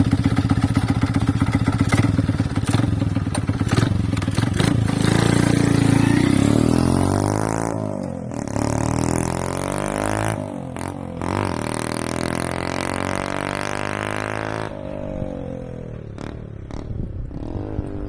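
Honda Jazz 50's small single-cylinder four-stroke engine running through a homemade exhaust with a modified silencer. It is loud and revving for the first several seconds, then its pitch sweeps up and down, and it settles to a quieter, lower, steady note about three-quarters of the way in.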